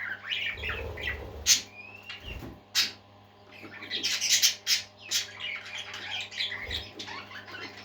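Pet parakeets chirping and warbling in quick, broken bursts, with a few sharp clicks. A short lull about three seconds in, then a denser flurry of chatter.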